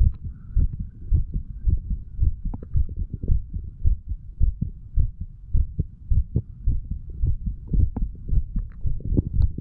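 A man's heartbeat recorded at the chest: steady, regular low thumps as the heart valves close with each beat. The uploader judges the valves to be opening and closing normally.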